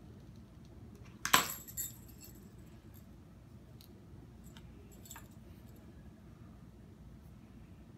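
Small metal jingle bells jangling and clinking as they are handled, with a sharp ringing jangle about a second in, a smaller one just after, and a faint clink near five seconds.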